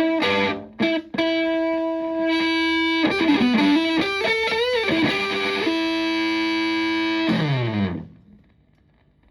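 Stratocaster electric guitar through a Tone Bender MKII fuzz pedal and a Fender Twin Reverb–style amp, playing a distorted lead phrase: a few picked notes, a held note, string bends, and another long held note. The phrase ends in a downward slide and dies away to near silence about a second before the end.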